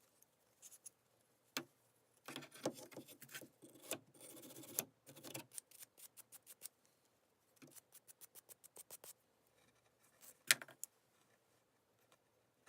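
Hand work on a pair of old steel pliers: runs of quick scraping or clicking strokes at about six a second, a longer rubbing passage in the first half, and one sharp metal click about ten seconds in.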